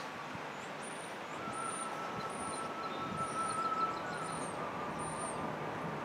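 Outdoor wind ambience: a steady rush of wind with a steady high whine in the background, while a small bird repeats a very high, thin chirp about six times, a little under a second apart.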